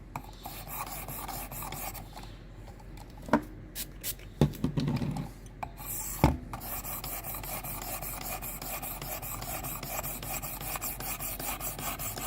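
A knife's steel edge being stroked across a wetted 600-grit diamond stone on a Worksharp Precision Adjust guided sharpener, a gritty rasping. A few knocks come in the first half, then steady, even strokes through the second half.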